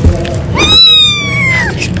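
A young kitten meowing once, a long high-pitched cry that rises quickly and then slowly falls, starting about half a second in: a hungry kitten's cry for milk. A short thump is heard at the very start.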